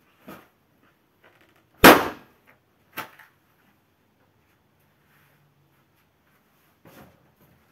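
A party balloon bursting under a bare foot, one loud sharp pop about two seconds in, followed about a second later by a much softer click.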